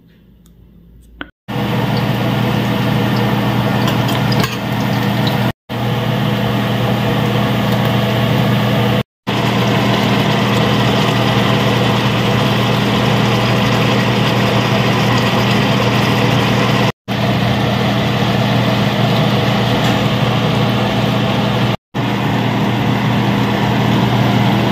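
Kitchen exhaust fan running with a steady, loud low hum, starting about a second and a half in and broken by a few short dropouts.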